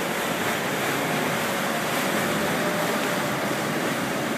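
A boat under way: steady rush of its wake and wind, with a faint steady engine hum coming in about halfway.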